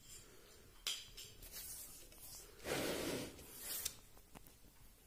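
Quiet handling noise: a sharp click about a second in, then about a second of rubbing or scraping near the middle, and a couple of faint clicks after it.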